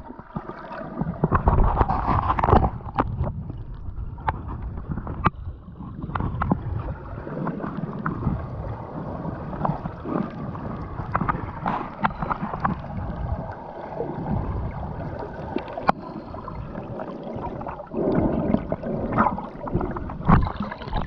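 Sea waves washing and gurgling at the shore, coming in surges, with many small clicks in the wash.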